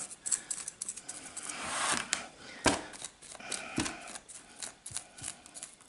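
Scraping and scratching of a hand tool working through a mulberry bonsai's root ball and soil during bare-root repotting, with scattered clicks and one sharp click about two and a half seconds in.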